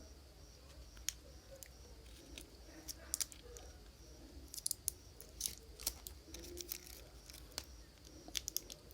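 Scattered small clicks and ticks of hands and tools handling a phone's battery and its protection board, over a faint low hum. A faint, evenly repeated high chirp runs through the first couple of seconds.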